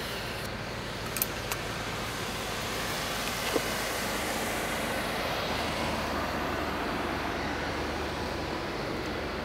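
Steady outdoor background noise, a hiss and low rumble with no clear source, swelling a little in the middle. Two faint clicks come a little after a second in, and a sharper tap at about three and a half seconds.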